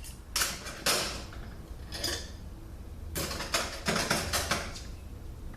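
Clutch plates from a Mercedes 722.6 automatic transmission clinking against each other and against metal as they are handled. There are a few separate clinks, then a quick cluster of them a little past halfway.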